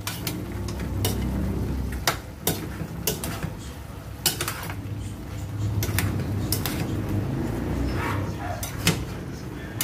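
A metal spoon stirring a chunky chicken and potato stew in a pot, clinking and scraping against the pot's rim and side at irregular intervals, over a steady low hum.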